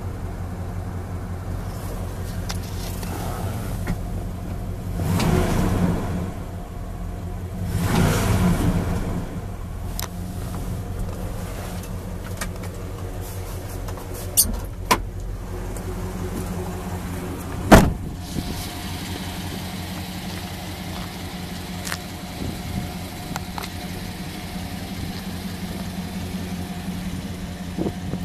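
The Dodge Ram 2500 work truck's engine idling steadily, heard from inside the cab, with two brief louder swells in the first third. A couple of sharp clicks around halfway, then a single sharp knock, the loudest sound.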